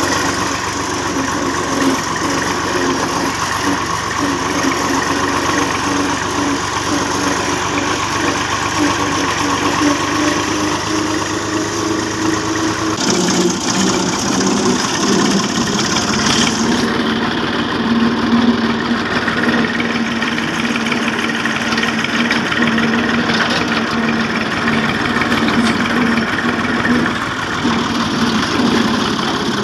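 Farm tractor's diesel engine running steadily under way, heard from the driver's seat close to the exhaust stack. The engine note shifts about 13 seconds in.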